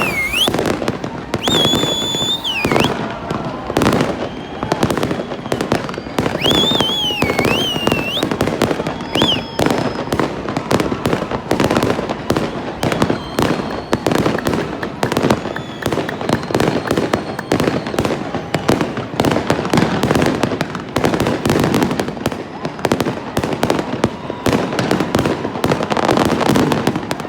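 Fireworks going off in a dense, continuous barrage of bangs and crackle, with high whistles gliding up and down over it during the first several seconds.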